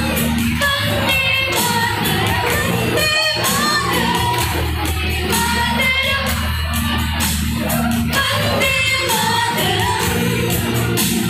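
A group of young women singing together into microphones through a PA, over backing music with a steady beat.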